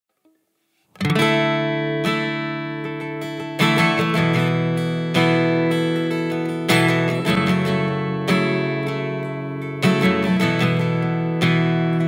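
Acoustic guitar playing an instrumental intro. It starts about a second in, with chords struck roughly every second and a half and each left to ring out.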